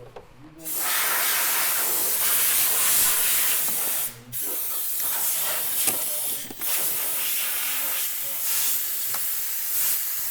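Compressed air hissing hard in three long blasts, with short breaks about four and six and a half seconds in, blown through a gunked-up fuel line to clear it.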